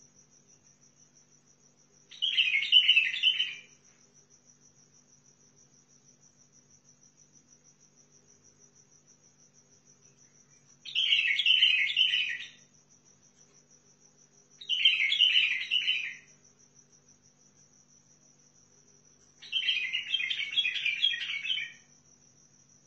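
White-eared bulbul singing: four short bursts of warbling song, each one to two seconds long and separated by several seconds of pause, the last burst the longest. Behind it runs a steady, high, thin pulsing tone.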